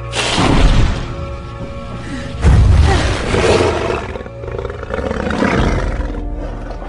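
A dragon's roars: several loud, rough outbursts, the loudest about two and a half seconds in, over dramatic film score music.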